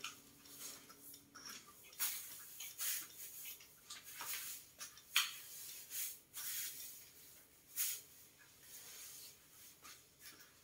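Long-handled grass broom brushing against a wall and ceiling, in quick irregular swishing strokes with a few louder sweeps.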